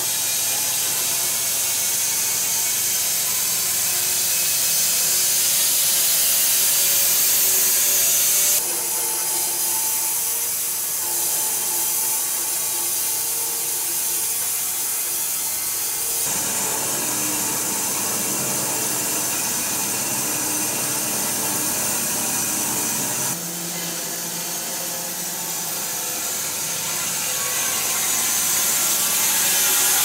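Electric-driven wide-cut bandsaw sawmill blade running through a wide silver maple log, a steady loud hiss and whine of the band cutting wood. The tone and level shift abruptly three times between passes.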